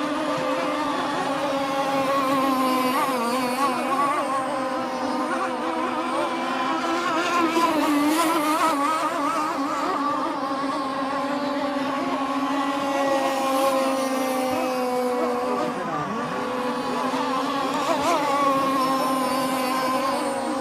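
Gasoline-powered boat engine running steadily, a high-pitched drone that dips briefly in pitch about sixteen seconds in before picking back up.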